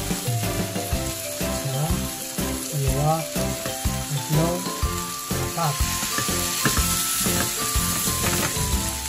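Onion, green pepper and tomato frying in a pan with a steady sizzle as raw sausages are laid on top, with a tune of held notes playing over it.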